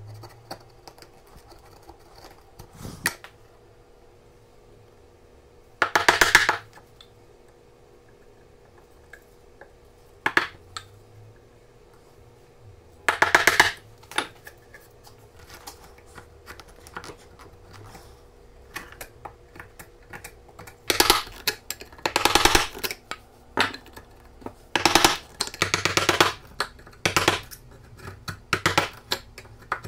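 Steel chisel paring and scraping waste out of a mortise in a quartersawn beech plane body: short scraping strokes, two spaced well apart, then a quick run of them in the last third, with a few light taps between.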